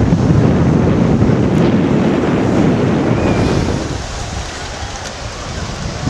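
Wind buffeting the microphone: a loud, low rush that eases for a second or so about four seconds in, then picks up again.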